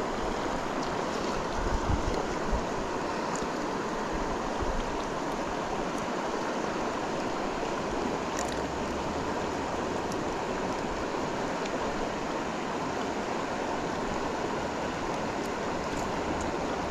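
Steady rushing of river water. A couple of brief low thumps come about two seconds in.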